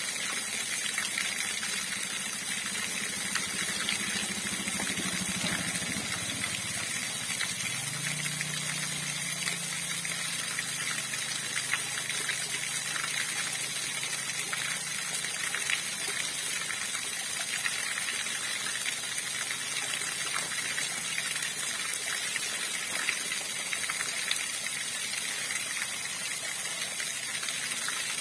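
River water rushing steadily, an even gushing hiss with no breaks.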